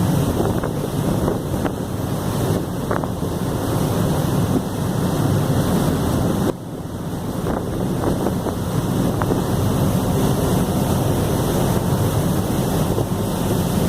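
Wind buffeting the microphone on the deck of a moving harbour ferry, over the steady noise of its engine and the wash of water. The noise drops suddenly about six and a half seconds in, then builds back.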